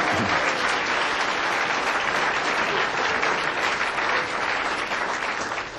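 Audience applauding, dying away at the very end.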